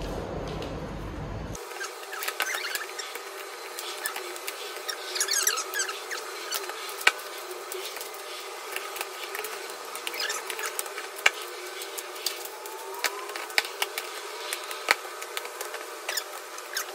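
Collapsible plastic storage crates being handled and unfolded: hard plastic clicking and snapping as the folding sides lock into place, with scattered squeaks and rattles of plastic against plastic.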